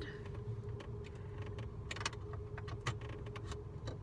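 Light, scattered clicks of a small plastic car FM transmitter being handled and fitted, over a faint steady electronic tone and a low hum.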